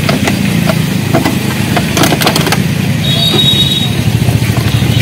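Motorcycle engine idling steadily, with a cluster of sharp clicks about two seconds in and a short high tone just after three seconds.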